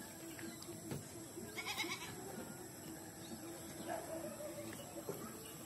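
Faint farmyard animal calls, with one louder call about two seconds in and a shorter one near four seconds, over a faint steady drone.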